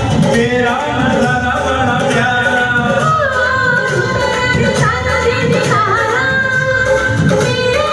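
A Hindi film song playing: a singing voice over full instrumental accompaniment with a steady beat.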